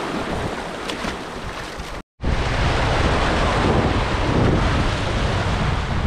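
Sea waves washing and breaking over shoreline rocks, with wind buffeting the microphone in a low rumble. The sound cuts out completely for a moment about two seconds in, then comes back louder.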